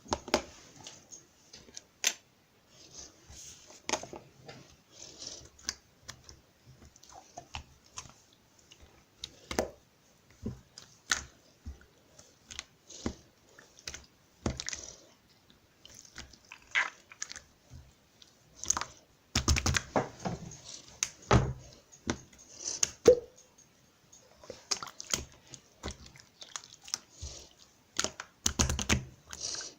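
Irregular crisp clicks and short crunches close to the microphone, with a few denser clusters of louder crunching near the middle and end.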